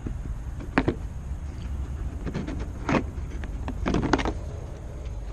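Plastic clips of a Volkswagen Tiguan's red rear bumper reflector being pressed into the bumper, making a few sharp clicks: one about a second in, one at three seconds and a quick cluster near four seconds.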